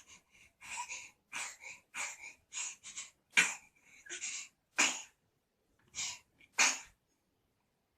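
A baby sneezing repeatedly in a run of short, hissy bursts with quick breaths between; the three loudest, sharpest sneezes come in the second half.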